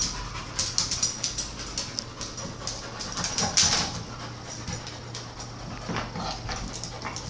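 Dogs chewing and gnawing on a bone: quick, irregular clicks and scrapes of teeth on bone.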